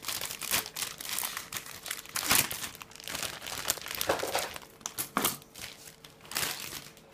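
Clear plastic bags holding Gunpla model-kit runners crinkling as they are handled. The crinkling is busiest in the first half and thins to scattered crackles later.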